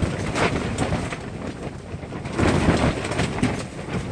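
Strong wind buffeting the microphone: a loud, uneven rumble with scattered knocks, getting louder about halfway in.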